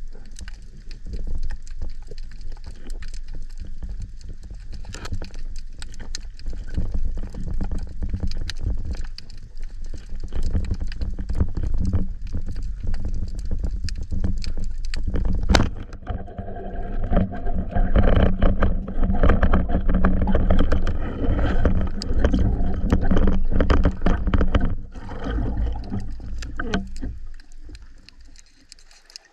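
Underwater sound picked up by a camera on a band-powered speargun: muffled water movement and scattered clicks, with one sharp snap about halfway through as the speargun fires. Louder churning water follows the snap and fades near the end.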